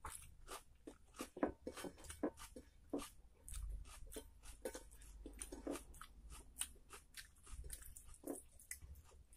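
Close-up eating sounds: fingers squishing rice and curry on a paper plate, along with chewing, heard as a quick, irregular run of short clicks and smacks.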